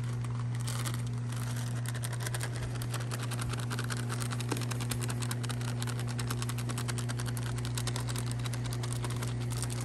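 Seasoning being shaken from a bag over a cooler of boiled crawfish: a rapid, dense ticking patter that starts about half a second in and stops near the end, over a steady low hum.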